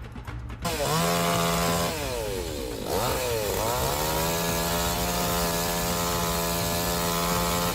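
Chainsaw engine revving up about half a second in, easing off and climbing again around three seconds in, then running steadily at high revs.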